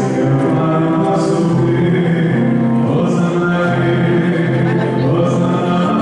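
Many voices singing a slow hymn together, with long held notes.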